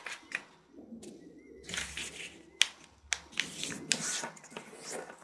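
A sheet of origami paper rustling and being creased by hand, with intermittent sliding rubs and a few sharp clicks as fingers press the folds flat.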